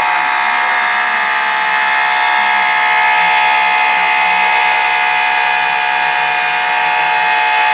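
Home-built CNC machine running, its motors giving a steady high whine.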